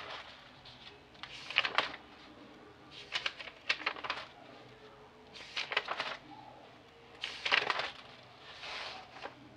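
Several short bursts of rustling and clicking handling noise, one every second or two, over a quiet room.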